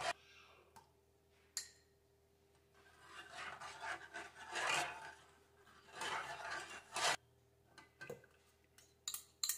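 Metal spoon stirring and scraping through hot milk in a metal saucepan as cornflour slurry is stirred in, in a few soft rubbing swells. Near the end come several quick light clicks of the spoon against the ceramic bowl.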